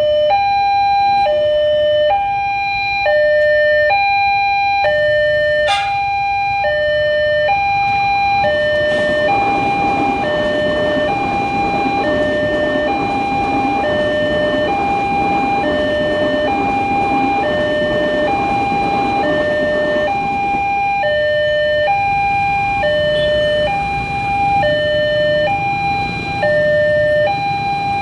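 Railway level-crossing warning siren sounding continuously, switching evenly between a high and a low tone about once a second. A broad rumbling noise swells up under it through the middle.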